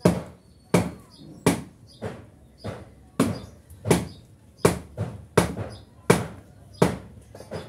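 Homemade metal-disc dumbbells knocking once with each quick repetition, about one sharp knock every 0.7 s; the knocks stop near the end.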